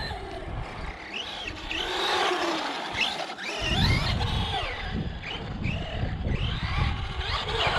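Remo Hobby 1035 1/10-scale brushless RC monster truck running on 3S, its motor whining up and down in pitch as the throttle is worked. A low rumble of tyres on tarmac comes in about halfway through.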